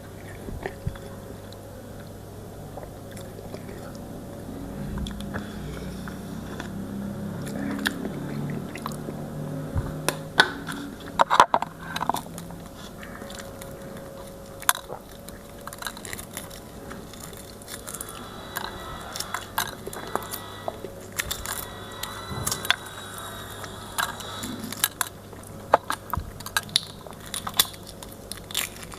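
A person eating close to the microphone: chewing and mouth sounds with many short, sharp clicks and crunches, over a steady low hum.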